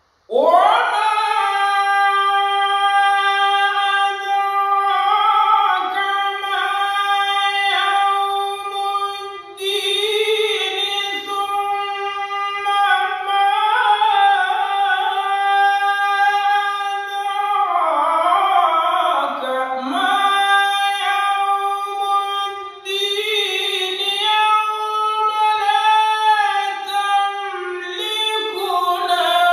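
A man chanting Quranic recitation unaccompanied in maqam Sikah, in a high, sustained voice with long held notes and melismatic ornaments. The voice starts just after the beginning and breaks briefly for breath a few times.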